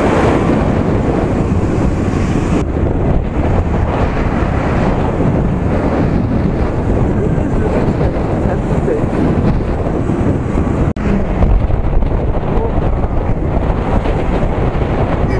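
Wind rushing and buffeting over an action camera's microphone on a motorcycle moving at speed. It is loud and steady, and drops out for an instant about eleven seconds in.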